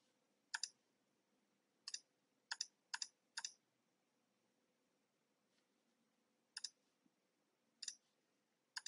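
About eight sharp computer mouse clicks at uneven intervals, each a quick double snap, with near silence between them.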